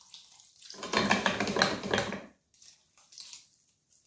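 Water poured from a glass jug into a pressure-cooker pot of beans and chopped vegetables: a splashing pour about a second in that lasts over a second, then a few faint trickles.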